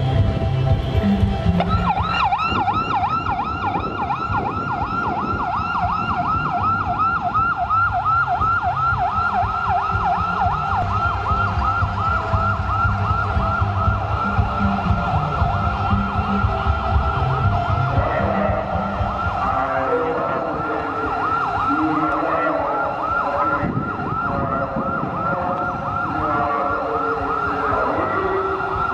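Police escort vehicle's electronic siren on a fast yelp, rapid rising-and-falling sweeps starting about two seconds in and sounding on without a break. Low throbbing music runs beneath it and fades out about two-thirds of the way.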